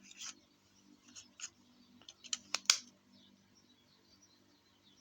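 Handling of a small die-cast metal toy van: a handful of short clicks and light scrapes in two clusters, the sharpest near the end of the second cluster, about three seconds in.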